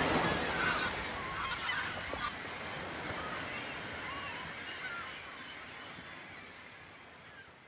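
A flock of geese honking in flight, many overlapping calls, fading out over the last few seconds.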